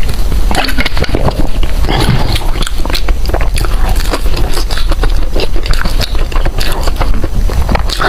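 Close-miked eating sounds: a person biting and chewing food in a quick, dense run of clicks and smacks over a steady low hum.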